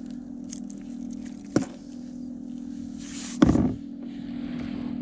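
Hook and fish handling on a kayak while a small fish is unhooked: a sharp click about one and a half seconds in and a heavier knock a little after three seconds, over a steady low hum.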